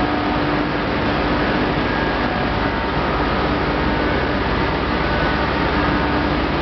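Corn wet-milling processing machinery running steadily: a constant industrial hum with a few held tones over even mechanical noise.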